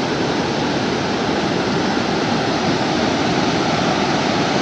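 Steady, loud rush of falling water from the Great Falls of the Passaic River, an even roar with no break or change.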